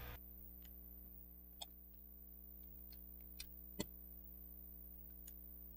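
Faint, scattered clicks and ticks of small plastic toy parts being handled and fitted, about seven in all, the sharpest near the four-second mark, over a faint steady low hum.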